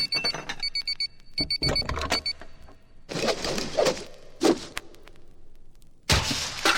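Digital alarm clock beeping in rapid groups of short high beeps, stopping about two and a half seconds in. A few scattered rustling, thumping noises follow, then a loud burst of noise near the end.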